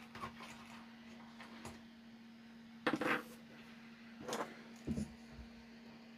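Light knocks and clicks as a circuit board and small tools are handled on a workbench mat, about three short clatters, the loudest about three seconds in, over a steady low hum.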